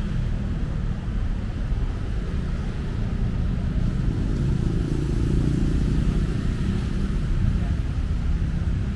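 City road traffic: a steady rumble of cars and motorcycles going by, swelling a little around the middle.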